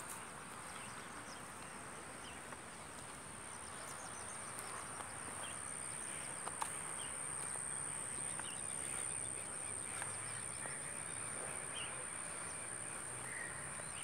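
Insects trilling in one steady, continuous high-pitched note, with a few faint bird chirps here and there.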